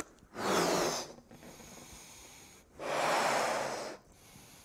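A man blowing up a balloon: two hard, rushing breaths into it, each about a second long, the second coming about two seconds after the first.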